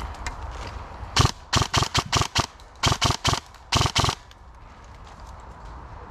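Airsoft gun firing about a dozen sharp shots in three quick strings, roughly five shots a second, starting about a second in and stopping about four seconds in.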